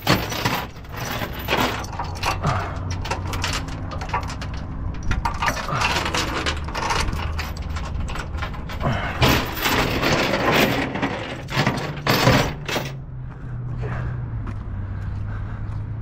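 Steel tie-down chain rattling and clinking as it is handled and hooked onto a backhoe's tie-down point, with links knocking together and against the trailer. The sharp clinks thin out near the end, leaving a steady low hum.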